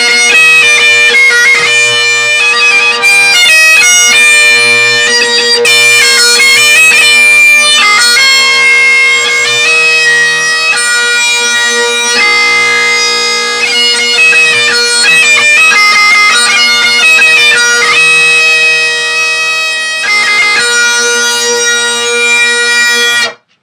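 Great Highland bagpipes playing a tune: a changing chanter melody over steady, unbroken drones, cutting off suddenly near the end.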